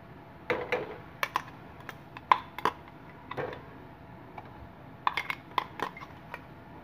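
A spoon clinking and tapping against a stainless steel bowl and the frying pan as crushed ginger, garlic and green chilli is scraped out: a scattering of sharp knocks in the first half, then a quick cluster of taps about five seconds in.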